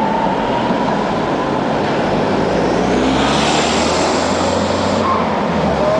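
Loud, steady city traffic noise heard from a moving bicycle. A tram's electric motor whine rises and fades out in the first second, and a car passes close by with a swelling hiss and rumble between about three and five seconds in.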